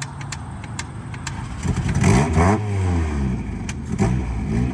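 Car engine running and being revved, rising and falling in pitch about two seconds in and again near the end, with a few sharp clicks in the first second or so.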